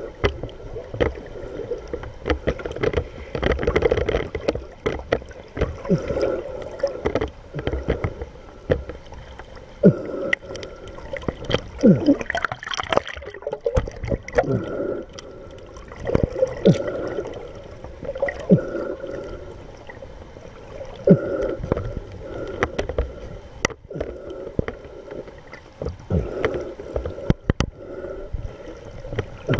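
Sea water heard through an underwater camera near the surface: uneven rushing and gurgling with many short clicks and pops, over a faint steady hum.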